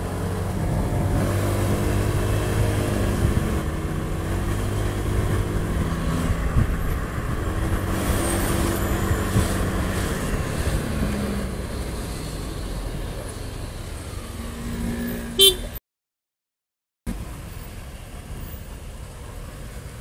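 Motorcycle engine running under way in traffic, its pitch rising and falling as the rider speeds up and eases off. A horn sounds briefly about fifteen seconds in, then the sound cuts out completely for about a second.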